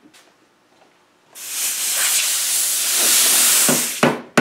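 A loud, steady hiss of unclear source for about two and a half seconds. Then, near the end, sharp hammer strikes begin as small nails are tapped into a wooden board.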